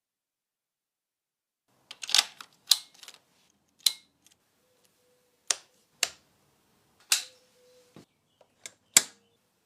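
A string of about a dozen sharp mechanical clicks and clacks at irregular intervals, starting about two seconds in.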